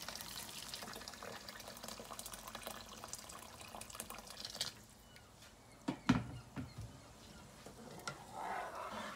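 Liquid pouring from a container into a pot of onion and tomato sauce, splashing and trickling for about the first four and a half seconds. A few sharp knocks about six seconds in as a spatula stirs the pot.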